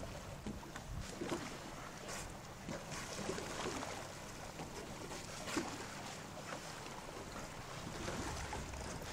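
Water sloshing around a small boat at sea, with wind on the microphone and a faint steady engine hum. A few short splashes come as dolphins surface close by.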